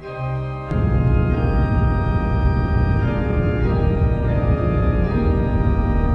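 Instrumental music of held, sustained chords; the notes stay steady in pitch, and a fuller, louder low part comes in just under a second in.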